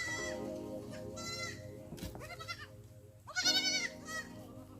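Goats bleating: several short, high, wavering bleats, about four of them, with lower calls beneath. The loudest comes about three and a half seconds in.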